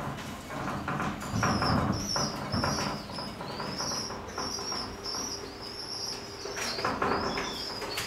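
Small birds chirping over and over in short high notes, about two a second, with rustling and wing flaps near the start and again near the end.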